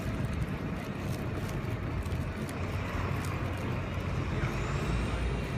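Steady city street ambience: a low hum of distant road traffic. A faint high tone rises and falls near the end.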